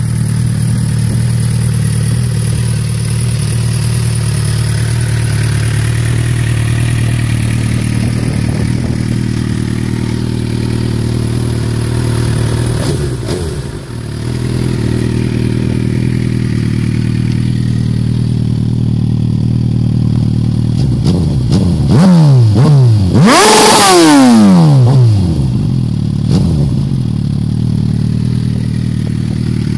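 2009 Suzuki GSX-R1000 K9 inline-four motorcycle engine running at a steady idle through a MIVV X-Cone aftermarket exhaust. There are a couple of light throttle blips in the first half, then a quick burst of hard revs that rise and fall, the loudest part, a little past two-thirds of the way through.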